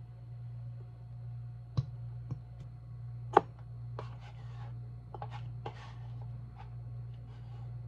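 Kitchen handling sounds: a few sharp clicks and taps, the loudest about three and a half seconds in, then soft scraping as a wooden spoon scoops yogurt out of a carton into a glass, over a steady low hum.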